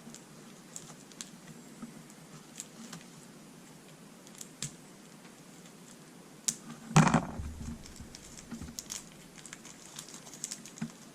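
Light clicks and rustling of small plastic model-kit parts and packets being handled, with one louder thump about seven seconds in.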